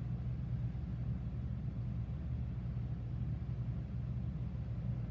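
Steady low hum, even throughout, with no distinct knocks or clicks over it.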